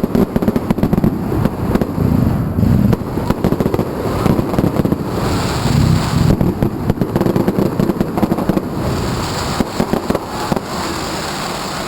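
Fireworks going off in a rapid, continuous barrage of overlapping bangs and crackles, with bursts of crackling hiss about 5 seconds in and again near the end.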